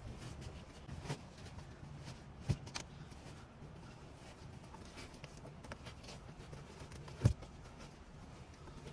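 Handling noises from a seat cover being worked onto a car's rear seat by hand: faint rustling and a few short knocks, the sharpest about seven seconds in, over a low steady hum.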